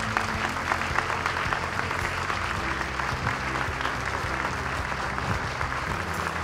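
Audience applauding steadily: many people clapping together in a dense, even stream of claps.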